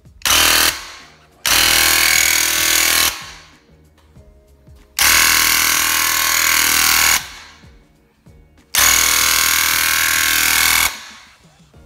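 Graco TrueCoat 360 VSP handheld airless paint sprayer spraying in four trigger pulls: a short one, then three of about two seconds each. Its electric piston pump runs with a loud buzz while the trigger is held and stops between passes.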